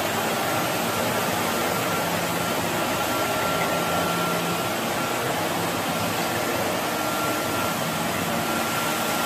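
CT160 ride-on floor scrubber-dryer running while it cleans a concrete floor: a steady rushing hum of its suction motor and scrubbing brushes, with a thin high whine that comes and goes.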